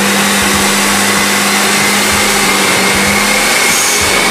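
Diesel pickup truck engine running hard under load on a chassis dyno: a loud, steady mechanical roar with a faint whine slowly rising in pitch.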